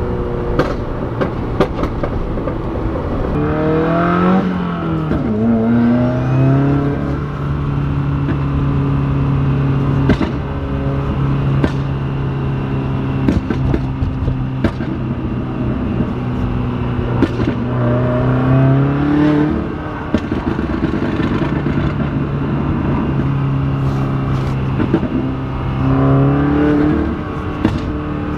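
2016 Subaru WRX's turbocharged FA20 flat-four heard from inside the cabin, revs rising and falling several times and holding steady between. Scattered sharp pops come from the exhaust under a pop tune: extra fuel is sent through as the throttle is barely pressed while revs drop, and it explodes in the exhaust.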